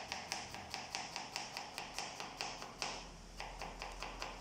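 Kitchen knife chopping an onion on a plastic cutting board: quick, even taps about five a second, with a short pause about three seconds in, stopping near the end.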